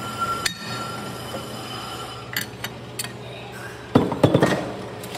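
Brake lathe running with a steady low hum after a sharp click about half a second in, its brake disc coming to rest. About four seconds in, a quick run of loud metallic clinks and knocks as the disc and chuck are handled.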